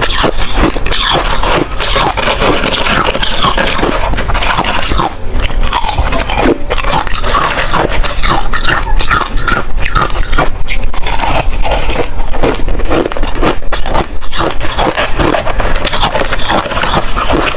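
Ice being bitten and chewed close to the microphone: loud, continuous crunching and crackling with many sharp cracks.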